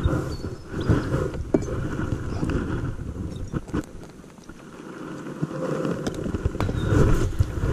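Wind buffeting a GoPro's microphone on a kayak, a low rumble that eases briefly in the middle, with scattered sharp clicks and knocks from handling close to the camera.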